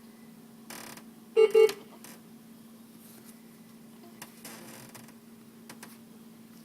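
Hospital medical equipment giving a loud electronic double beep about a second and a half in, two short identical tones in quick succession, over a steady low hum.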